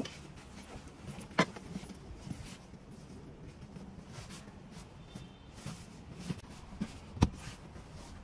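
A vinyl-like car seat cover being pulled and smoothed down over a rear seat backrest: soft, irregular rustling and rubbing. Two sharp knocks stand out, about a second and a half in and near the end.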